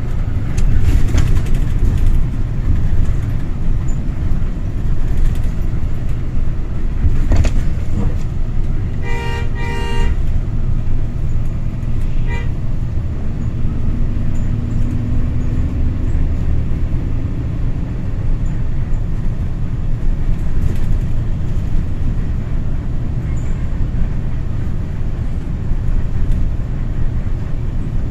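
Steady engine and road rumble of a car driving, heard from inside the cabin, with a car horn giving two short toots in quick succession about nine seconds in.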